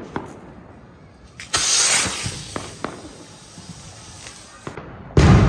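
Diwali firecrackers going off: scattered sharp pops and cracks, a louder rushing burst about a second and a half in, and a loud firework bang near the end that rings on.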